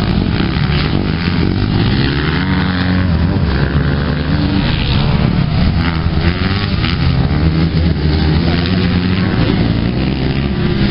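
Several motocross dirt bikes racing on a dirt track, their engines revving, the pitch rising and falling again and again as riders accelerate and shift.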